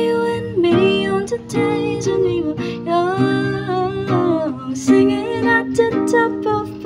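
Acoustic guitar strummed, with a young woman singing along over it.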